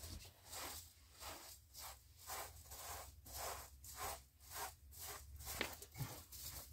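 A hand broom of bundled dry stalks sweeping the floor in short, brisk strokes, about two a second.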